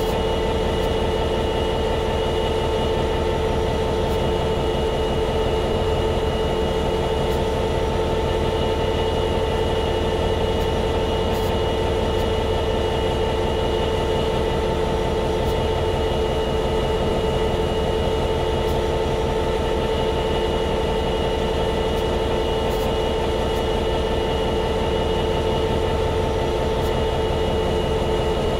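EMD 12-710G3C-EC twelve-cylinder two-stroke diesel prime mover of an F59PHI locomotive idling steadily: a fast, even throb with a steady whine over it.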